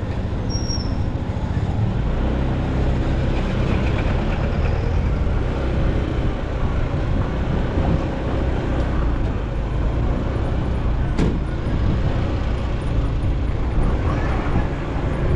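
Motorcycle engine running steadily while riding in street traffic, with road noise around it. A single sharp click about eleven seconds in.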